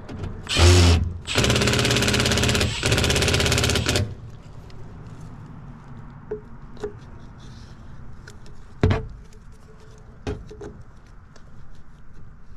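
Cordless impact driver hammering screws into the unit's sheet-metal panel: a short burst, then a run of about two and a half seconds of rapid impacts. Afterwards a few light knocks and clicks as a PVC drain trap is handled into place.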